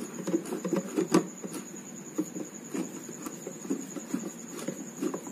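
Screwdriver working the reverse-threaded coupling nut tight on a mixer grinder's motor shaft: scattered taps, clicks and scrapes of metal on the plastic coupling, the sharpest click about a second in. A steady high-pitched tone runs underneath.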